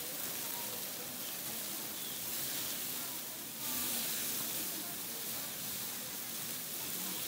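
Meat skewers sizzling on a hot flat-top steel griddle, a steady hiss, with crowd voices faint behind.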